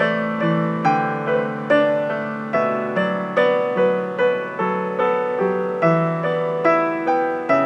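Solo piano playing a slow, gentle melody over sustained bass notes, about two notes a second, each struck and fading.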